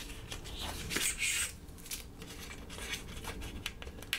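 Cardboard box being slid open by hand: soft paper-on-paper rubbing and sliding with scattered light clicks and taps, and a brief louder scrape about a second in.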